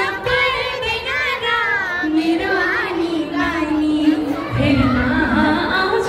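A high voice singing with long held notes, over the chatter of a crowd.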